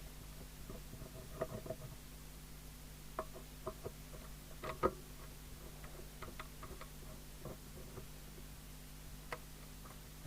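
Scattered light clicks and taps of screws being undone and a CB radio's casing being handled, with one sharper knock near the middle, over a steady low hum.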